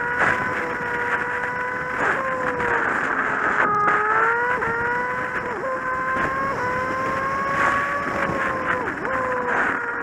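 Kawasaki Z750's inline-four engine running steadily while the motorcycle is ridden, a continuous whining note over rushing noise. The pitch dips briefly and recovers several times in the second half.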